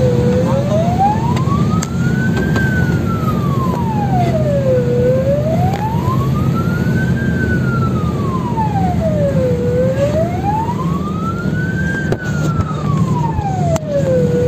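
Fire engine's wail siren sweeping slowly up and down in pitch, about one rise and fall every five seconds, heard from inside the cab over the truck engine's steady low drone.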